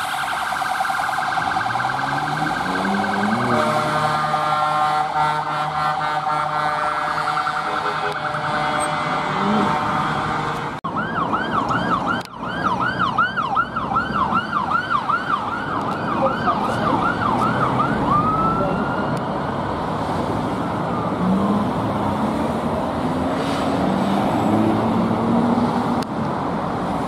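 Sirens of passing emergency vehicles. First a fire engine's siren wails steadily while its engine rises in pitch as it pulls past. After a sudden cut, an ambulance officer's car sounds a fast yelp, about two sweeps a second, which changes to a slower wail about two-thirds of the way through, followed by traffic noise.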